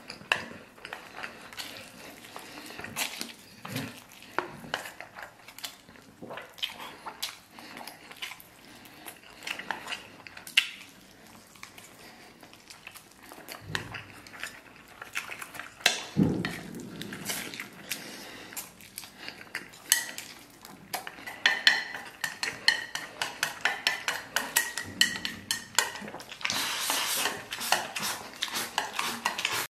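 Chopsticks clicking and scraping on a stainless steel plate, with chewing and mouth sounds between the clicks. Near the end, a long slurp as the plate is tipped up to the mouth.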